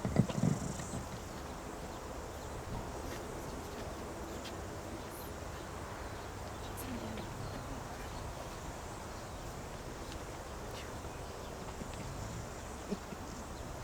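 Quiet open-air ambience: a steady low background with faint insect chirring and a faint murmur of voices. There are a few soft knocks in the first second and one more near the end.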